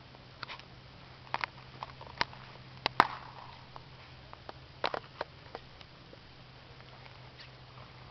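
Distant gunshots from a shooting range downhill: a scattering of sharp, irregular cracks, some in quick pairs. The loudest comes about three seconds in and has a short echo. A steady low hum runs underneath.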